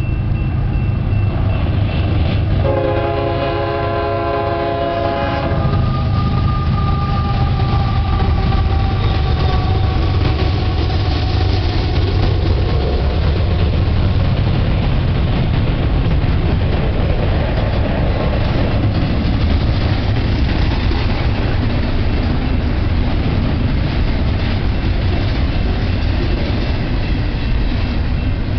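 Union Pacific double-stack container freight train passing: the locomotive horn sounds one blast of about three seconds, a few seconds in, followed by a fainter falling whine. The cars then roll by with a steady, heavy rumble.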